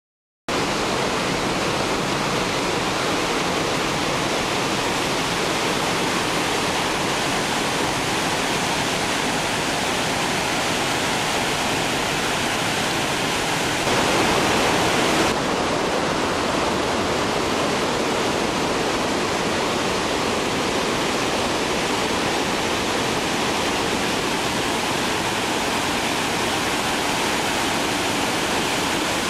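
Water overflowing the spillway of the 48.75 m Ponte Antoi dam and falling onto the rocks below: a steady, loud rush of falling water. It starts abruptly about half a second in and swells slightly for a second or so midway.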